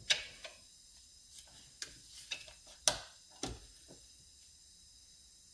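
A run of sharp, irregular clicks and clacks, about eight over the first four seconds and loudest near three seconds in, as the steel chain brake band and coil spring of a Husqvarna 455 chainsaw are handled and fitted into its plastic brake cover.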